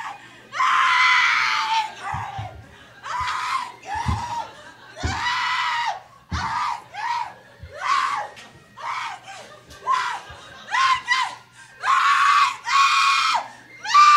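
A woman screaming over and over, a long run of high-pitched shrieks of varying length with short gaps between them. A few dull thumps come in the first half.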